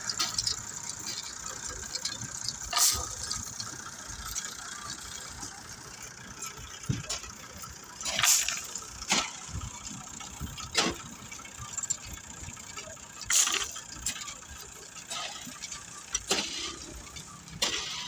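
Tractor engine running with a steady high hiss, broken several times by short, loud bursts of noise.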